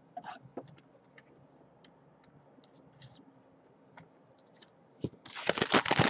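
Scattered light clicks and plastic rustles as a trading card is handled in a clear plastic holder, then, about five seconds in, a second and a half of loud crinkling from a foil-wrapped trading card pack.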